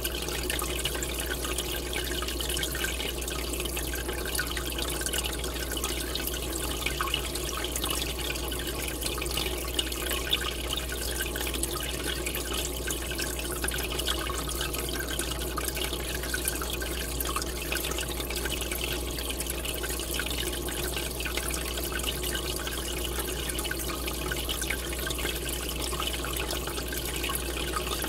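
Aquarium aeration: a column of air bubbles rising from an air line and breaking at the surface, making a steady bubbling and splashing full of small crackles, with a low steady hum underneath.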